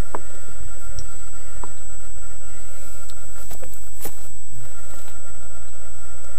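Car engine idling, heard right at its dual exhaust tailpipes as a steady low drone, with a few sharp clicks on top.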